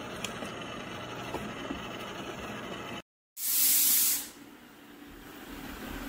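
eufy robot vacuum cleaner running with a steady noise that cuts off abruptly about three seconds in. After a short gap there is a loud hiss lasting under a second, then a quieter robot vacuum running with a steady low hum.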